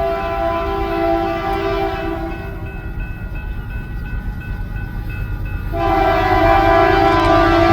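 Diesel locomotive air horn sounding a chord of several notes over the low rumble of a passing train: one blast fades out about two and a half seconds in, and a second, louder blast starts about six seconds in.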